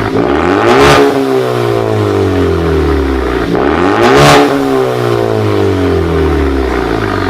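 Ford Focus ST's turbocharged engine revving through an aftermarket exhaust with a high-flow catalytic converter and a 3-inch cutout. It rises quickly twice, each time in under a second, and sinks back slowly over about three seconds; a third rise starts at the very end.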